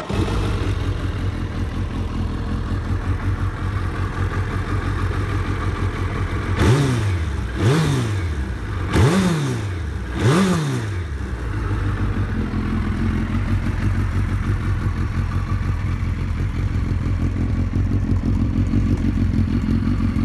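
A 2000 Suzuki Hayabusa's 1300 cc inline-four idling steadily through an aftermarket Radical silencer. It is blipped four times in quick succession about a third of the way in, each rev rising and falling back to idle. It runs on freshly replaced spark plugs, and the owner finds no faults so far.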